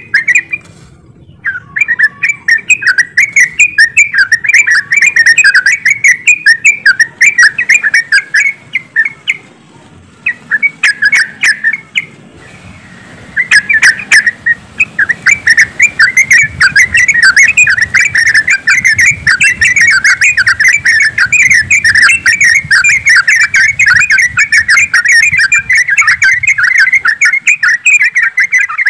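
A group of yellow-vented bulbuls chattering together, many rapid overlapping chirps with brief lulls about a second in and around ten and twelve seconds, then continuous calling from about thirteen seconds.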